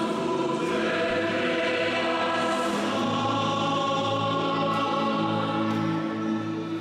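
Choir singing, many voices holding long, steady chords that ease off near the end.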